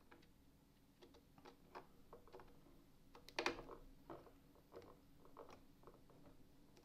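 Faint, scattered clicks and taps of 3D-printed plastic parts as a handle is pressed into its brackets on a vault door, the loudest a little past the middle.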